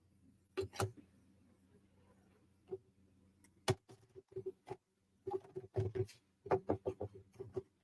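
Small wooden puzzle-kit pieces clicking and tapping as they are handled: a few isolated clicks, then a quicker run of clicks in the second half.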